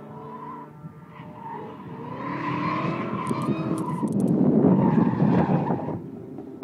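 A drift car's engine revving hard on the track, its pitch rising and falling, with tyres skidding and squealing. It grows louder for a few seconds as the car comes closer, then drops away sharply near the end.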